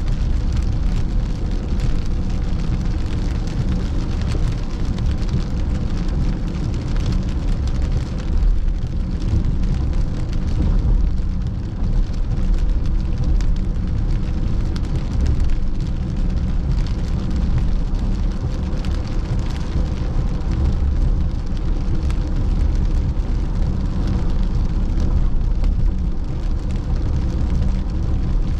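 Heavy rain hitting a moving car's roof and windshield, heard inside the cabin as a dense patter over a steady low rumble of road and engine noise.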